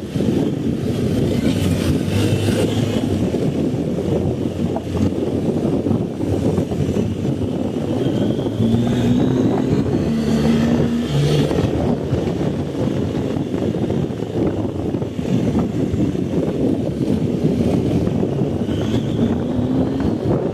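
BMW R 1250 GS boxer-twin engine running under way, mixed with a steady rumble of wind on the microphone. A brief, steadier engine note comes through about halfway in.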